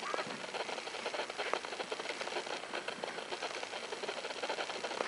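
Dog sled running over snow: a steady scraping of the runners with fast, continuous rattling and clicking from the sled.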